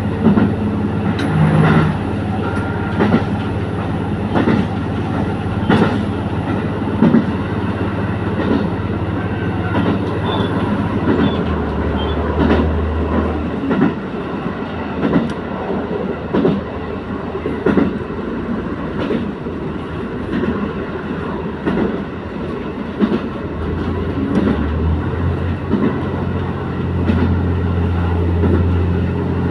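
Diesel railcar running along the line, its wheels clacking over rail joints again and again under a steady engine drone. The low drone swells for a couple of seconds near the middle and again for several seconds near the end.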